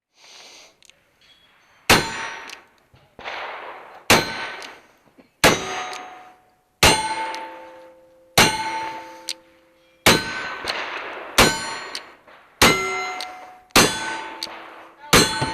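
Ten shots from a Pietta 1851 Navy black-powder cap-and-ball revolver, fired at a steady pace of about one every one and a half seconds. Each shot is a sharp crack followed by the clanging, ringing tone of a struck steel target.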